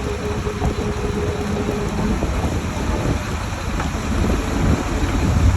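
Heavy engine running steadily with a low rumble at a concrete pour. A faint steady hum drops out about two seconds in.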